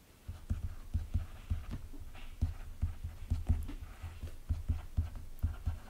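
Stylus writing on a tablet, heard as a rapid, irregular run of low taps and knocks with faint scratching, starting a moment in.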